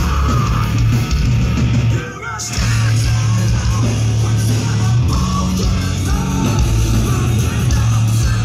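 Loud rock music with singing, dipping briefly about two seconds in.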